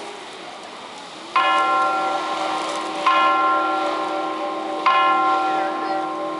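A large bell tolling: three even strikes about 1.75 seconds apart, each one ringing on into the next, beginning about a second and a half in.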